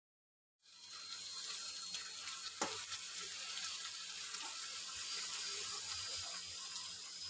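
Raw chicken pieces frying with onions and green chillies in hot oil in a steel kadhai: a steady sizzle that starts abruptly under a second in, with one sharp knock about two and a half seconds in.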